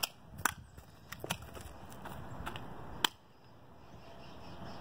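Quiet rustling of footsteps and movement over dry leaves and dirt, with a few sharp clicks and knocks, the loudest about three seconds in.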